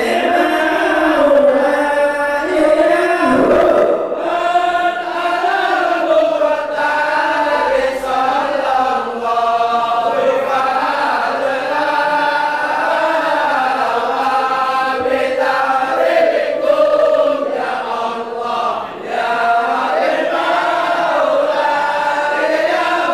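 A group of men chanting Arabic Maulid verses together into microphones, a continuous slow, wavering melody sung in unison without drum accompaniment.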